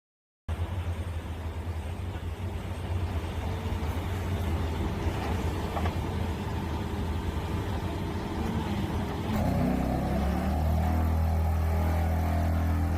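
Side-grip vibratory pile driver on an excavator, running with a steady low hum that starts abruptly. About nine seconds in it grows louder and steadier.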